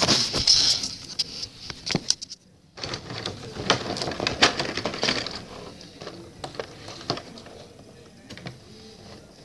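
Cardboard Hot Wheels 20-pack box being handled and pulled open: rustling, scraping and irregular knocks of card, with bumps from hands close to the microphone. There is a brief silent gap about two seconds in.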